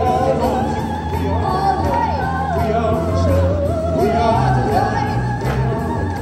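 Live song performance: a lead singer holds long, wavering notes with vibrato over a band playing with a steady drum beat.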